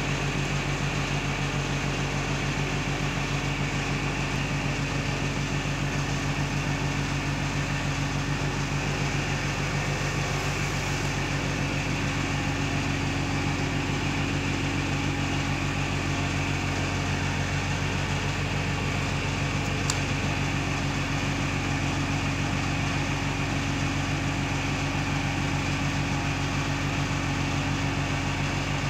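A steady low machine hum that does not change, with one faint click about twenty seconds in.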